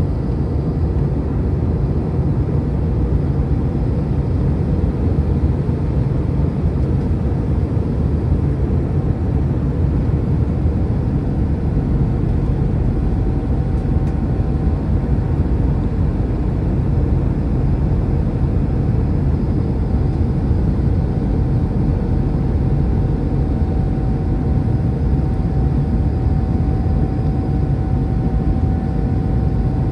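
Cabin noise of an Airbus A319-100 airliner on descent, heard from a window seat over the wing: a steady rumble of the jet engines and rushing airflow. A faint steady whine comes in about halfway through and holds.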